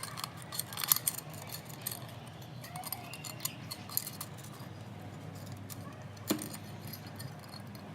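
Wire being wrapped by hand around a glass cup, with scattered clinks and jingles of metal wire and beads against the glass, busiest in the first second and once more a little after six seconds.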